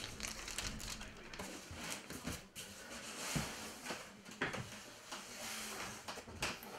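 Packaging being handled: a cardboard model-kit box being opened, with irregular knocks, scrapes and rustling.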